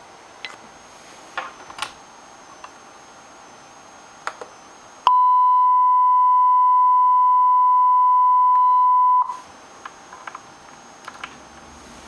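A single steady, high electronic tone played through laptop speakers for about four seconds, starting about five seconds in and cutting off abruptly. Before and after it come soft clicks of the laptop's touchpad and keys.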